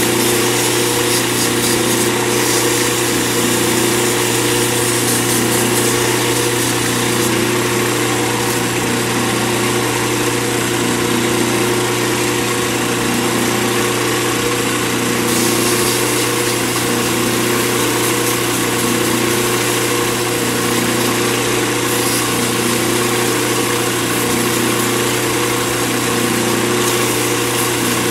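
Lathe motor running steadily with a hum while sandpaper is worked against a spinning zebra acrylic resin pen blank, adding a high hiss that shifts in level now and then.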